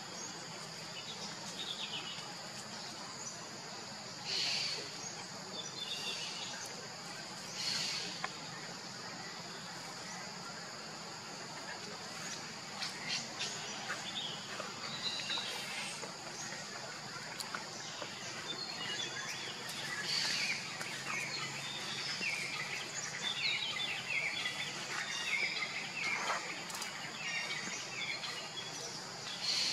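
Outdoor forest ambience: a steady high-pitched insect drone, with scattered bird chirps and a few brief louder calls.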